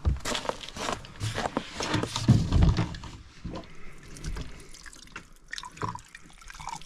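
Water running from a plastic water jug's spigot over a skinned, gutted snowshoe hare carcass as it is rinsed, splashing and dripping onto the ground. The pouring is heaviest in the first three seconds, then lighter.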